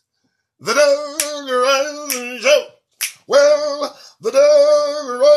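A man singing a show's opening theme in long held notes, with a few sharp snaps about one, two and three seconds in.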